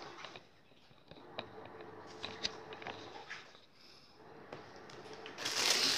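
Scattered faint clicks and handling sounds on a table, then near the end loud crinkling of the plastic wrapper of a sweet bread being opened.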